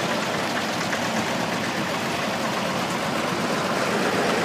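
Engines of two old farm tractors running at low revs with a steady rapid chugging as the tractors drive slowly past.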